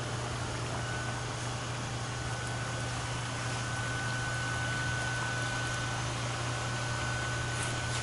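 Liquid nitrogen boiling off around a cold Teflon and aluminium mock-up, a steady hiss over a low hum, with a faint thin whine.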